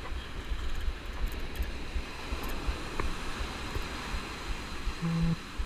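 Wind buffeting the microphone over the steady wash of breaking surf, with a brief low tone about five seconds in.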